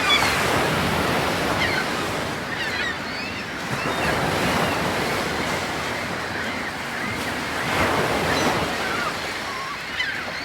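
Ocean surf: a steady wash of waves that swells about every four seconds.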